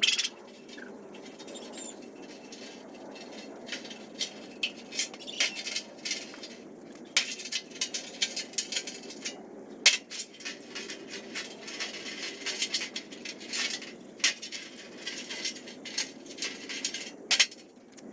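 Irregular light clicks, taps and scrapes, as of small metal parts being handled and worked.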